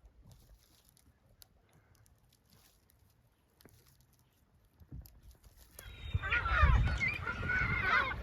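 Very quiet at first, with a few faint clicks. About six seconds in, a flock of birds breaks into loud calling: many overlapping calls that glide up and down in pitch.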